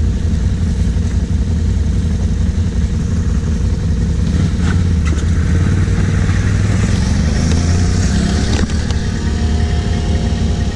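Can-Am ATV engines idling at a standstill, a steady low rumble close by. About two-thirds of the way through another quad revs up and pulls away, its pitch rising.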